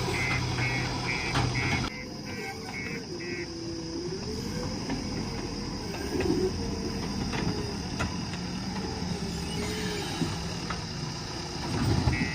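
JCB backhoe loader running while it works, with a steady low engine hum and a wavering whine that rises and falls. A rapid repeated beeping stops about two seconds in and starts again at the very end.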